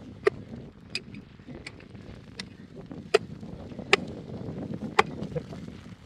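A small hand hatchet chopping into hard, stony ground: seven sharp strikes, roughly one a second, as the blade bites into soil and stones.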